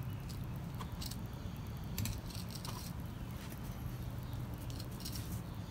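Fillet knife slicing along a sea robin's body, giving scattered soft crackles and ticks as the blade cuts through skin and along the bones. A steady low hum runs underneath.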